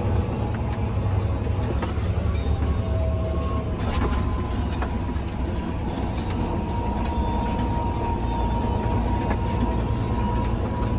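Tractor engine running steadily under load, with a high whine that slowly rises in pitch. Several sharp knocks and rattles come from the rig jolting over potholes.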